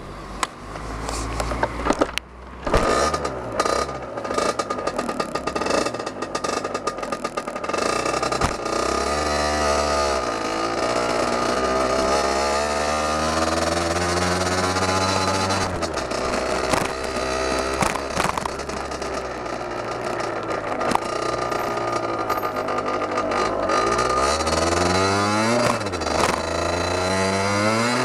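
Derbi Senda DRD's 50cc two-stroke single, derestricted and on a Turbokit sport exhaust, heard from the handlebars while riding. It runs uneven and choppy for the first several seconds, then its pitch climbs and drops back again and again as it is ridden up through the revs.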